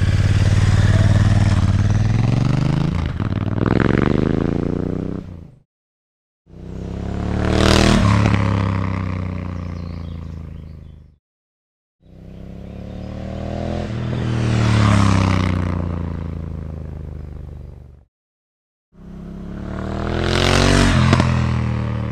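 Honda CRF1000L Africa Twin's parallel-twin engine, breathing through a LeoVince LV One slip-on exhaust, pulling away and revving up hard. After a brief silent cut come three separate flybys, each swelling to a peak as the bike passes and falling in pitch as it goes away, with short gaps of silence between them.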